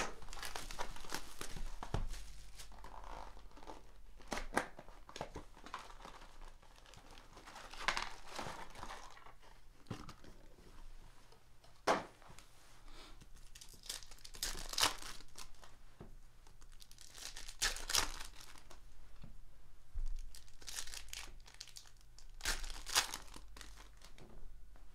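Hands tearing open a Panini Prizm retail basketball-card box and crinkling and ripping its foil packs, in irregular bursts of tearing and crinkling, with one sharp snap near the middle.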